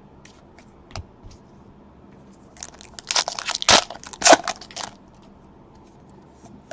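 Crinkling and tearing of a foil trading-card pack wrapper, in a cluster of crackling strokes lasting about two seconds near the middle, after a light tap about a second in.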